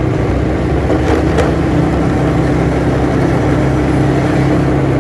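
Motorcycle engine running at a steady cruising speed while riding, with road and wind noise over it.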